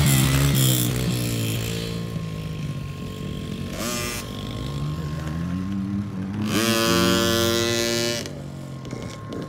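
Small youth dirt bike engines revving, loud at first and then fading as the bikes move off. Near the end a rev climbs and holds at a steady pitch for about a second and a half, then cuts back.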